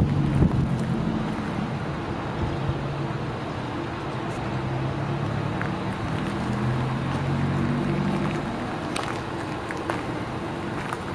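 Doosan S018VT mini track excavator's diesel engine running steadily, its pitch shifting slightly partway through, with wind on the microphone. A few light knocks near the end.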